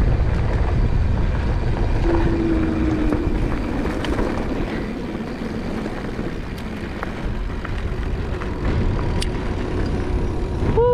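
Steady low rumble of wind buffeting the microphone, with no clear tones.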